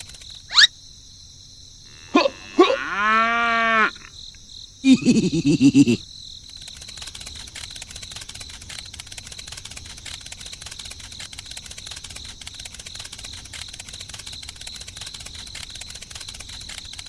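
A quick rising squeak, then a drawn-out pitched call that rises and falls, then a burst of fast low pulses, all within the first six seconds. Under them a steady high-pitched hiss runs throughout.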